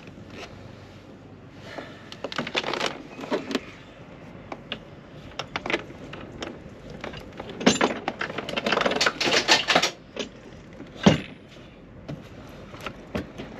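Hands moving gear on a boat deck around a wooden hatch: a coil of cables lifted and shifted, in bursts of clicks, rattles and knocks with one sharp knock near the end.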